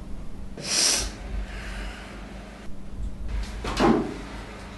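A man sniffing in sharply through the nose, a hissy snort about a second in. It is followed near the end by a louder, rougher, rasping sound.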